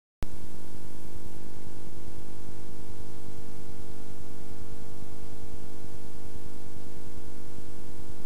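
Loud steady electrical hum with tape hiss, from a VHS transfer, cutting in abruptly just after the start; a few of the higher tones in the hum drop out near the end.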